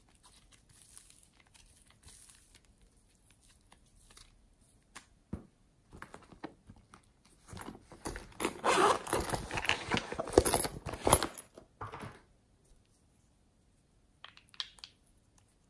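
Crinkling and rustling of a sequined pouch being handled close to the microphone, loud for about four seconds in the middle. Before it come only faint soft ticks from hands working clay slime, and near the end a few small clicks.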